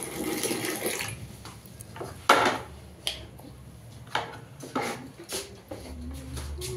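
Tap water pouring into a plastic bucket, cutting off about a second in, followed by several sharp knocks and clunks as the plastic bucket is handled and carried.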